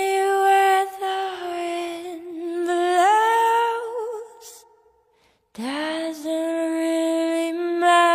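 A woman's voice singing long held wordless notes with a slight waver. It breaks off about four and a half seconds in and comes back a second later on a new held note.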